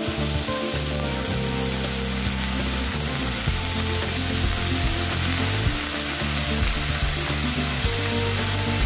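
Vegetables sizzling steadily in a hot pan as soy sauce and oyster sauce are poured over them.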